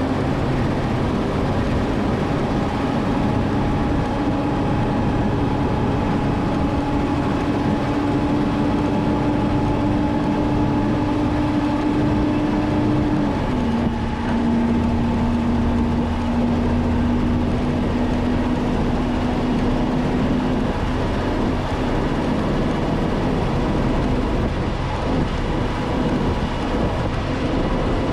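The Cummins 6CTA8.3 turbo-diesel of an M936A2 military wrecker truck pulling steadily down the road, running through a freshly replaced muffler, heard from inside the cab over road and wind noise. Its engine note steps down in pitch about halfway through, then sinks into the road noise.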